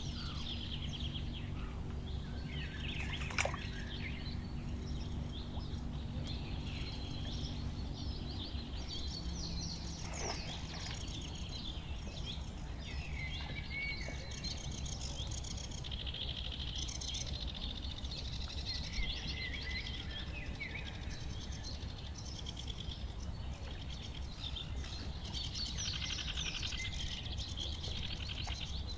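Several wetland birds singing and calling in short, busy phrases, over a steady low rumble. A faint low hum underneath stops about eight seconds in.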